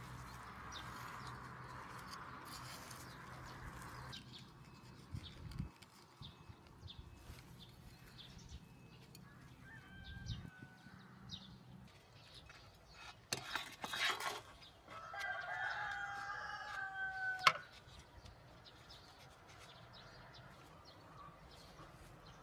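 A rooster crowing once, a long call about two-thirds of the way in that ends abruptly.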